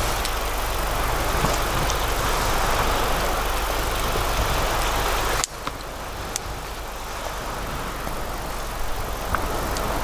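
Okonomiyaki sizzling in a cast iron skillet over a campfire, a steady hiss with scattered sharp crackles from the burning wood. About halfway through the sound drops abruptly to a quieter level and carries on.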